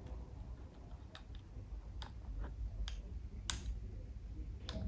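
Small, sharp metallic clicks and ticks, about seven scattered ones with the loudest about three and a half seconds in, from an Allen key and the metal clamp parts as the bar clamp of a unicycle T-bar handle is fitted and nipped up.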